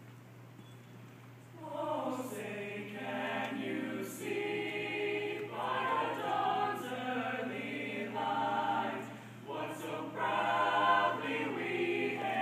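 Jazz choir singing the national anthem a cappella in harmony, coming in about a second and a half in after a quiet start. There is a short break between phrases near the end.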